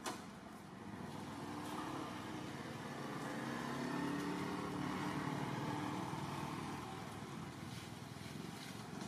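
A motor vehicle's engine passing by, growing louder to a peak about four to five seconds in and then fading. A short sharp click comes right at the start.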